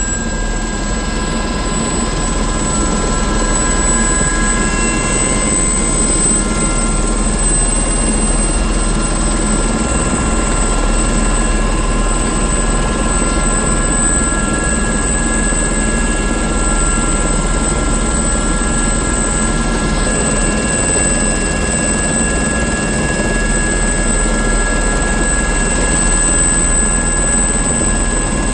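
Aérospatiale SA 341F Gazelle helicopter running on the ground with its rotor turning: the Turbomeca Astazou turboshaft gives a steady high-pitched whine over a constant rushing noise, and the top of the whine creeps slightly upward in the first few seconds.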